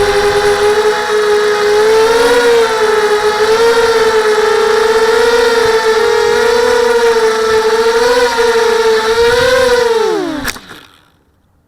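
Small FPV quadcopter's SunnySky 2204 2300KV brushless motors spinning 5x3 props, a steady whine that wavers slightly in pitch; about ten seconds in there is a click and the pitch falls steeply as the motors spin down to a stop.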